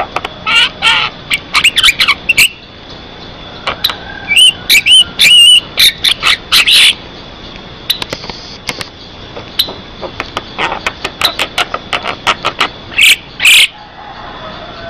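Javan myna singing: a busy run of rapid clicks and chips with a few whistled notes, broken by loud harsh calls around the middle and again near the end.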